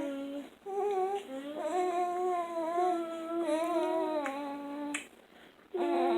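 Young boys humming long, fairly steady "mmm" tones while eating: a short hum, then one long hum of about three seconds, with a sharp click about five seconds in.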